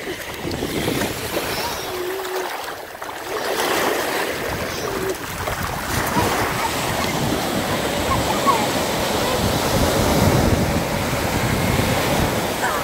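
Small ocean waves breaking and washing up over shallow sand, a steady surf wash that gets louder about three seconds in.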